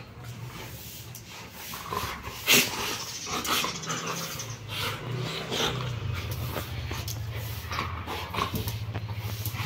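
Golden retrievers playing close to the microphone, one growling low and rough from about three and a half seconds in. A sharp knock, the loudest moment, comes about two and a half seconds in.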